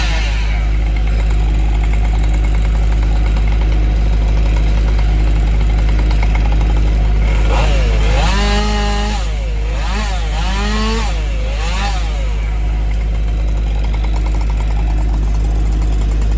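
A heavy equipment diesel engine runs steadily throughout. Between about eight and twelve seconds in, a chainsaw revs up and down several times over it.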